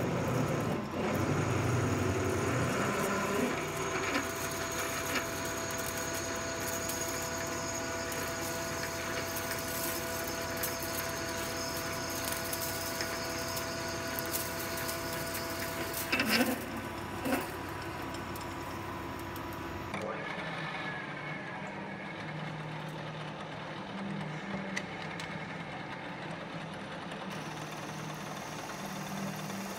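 Metal lathe drilling a bore in a spinning metal disc with a large twist drill: a steady machine whine with held high cutting tones. About two-thirds of the way through it changes abruptly to a milling machine cutting a hole in a metal plate, a lower pulsing machine hum.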